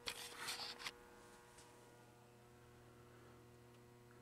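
Faint, steady electrical hum from the pinball machine's coin door lockout coil, energized now that the game is switched on. A brief rustling noise in the first second.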